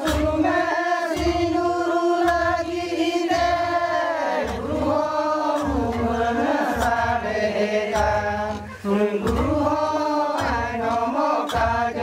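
Men singing a Santal Dasai dance song together as a loud group chant, held notes bending up and down. Under it runs a deep beat about once a second from the bhuang, bow-shaped plucked string instruments with gourd resonators.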